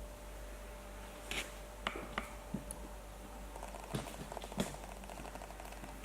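A few light clicks and taps from small objects being handled, with a short rapid rasping scrape in the middle, over a steady electrical hum.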